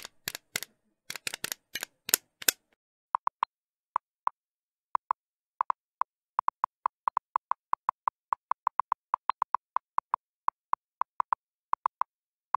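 Text-typing sound effect. A quick cluster of sharp clicks over the first two and a half seconds, then a long run of brief blips all at one high pitch, a few a second at uneven spacing, as text types out letter by letter.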